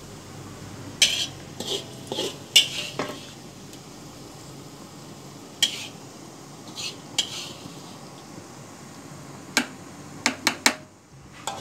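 A cooking utensil scraping and knocking against a metal wok and pot while fried shallot, garlic and ginger are scraped into the pot: about a dozen sharp clinks and scrapes, bunched in the first few seconds, a few in the middle, and a quick run of four near the end.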